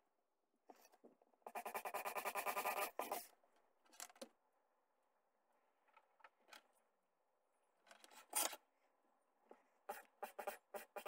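Twist drill bit boring into a small piece of wood: a rapidly chattering, rasping burst of a second and a half, a short burst and a sharp knock later, and drilling starting again near the end.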